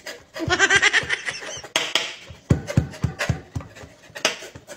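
A woman's brief laugh, then a kitchen knife chopping garlic on a wooden cutting board in a quick run of sharp strokes, about four or five a second, from about halfway through.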